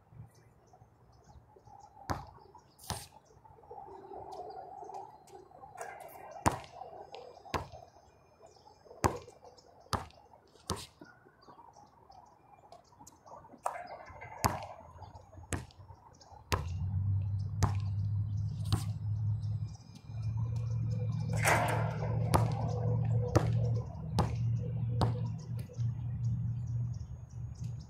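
A basketball bouncing on a hard outdoor court and striking the hoop as shots are taken, heard as sharp thuds a second or more apart. A steady low hum comes in a little past halfway and runs under the bounces.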